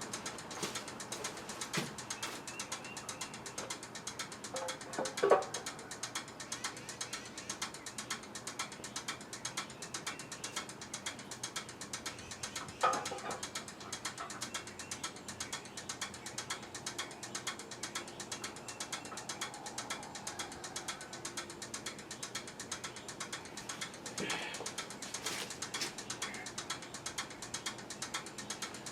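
Rapid, steady mechanical clicking from hand work on a pressure washer being taken apart, with sharp knocks about 5, 13 and 24 seconds in.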